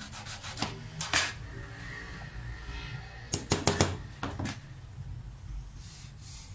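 Light knocks and clicks as a thin wooden strip and a tape measure are handled and set down on an MDF board: a pair of knocks about a second in, then a quick run of clicks around three and a half seconds in.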